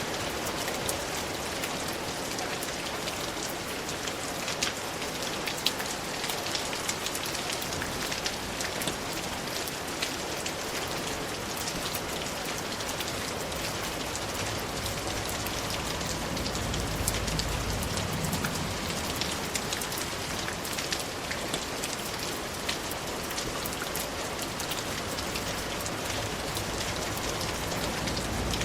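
Steady rain falling, a dense even hiss dotted with many distinct drop ticks. A low rumble swells briefly past the middle.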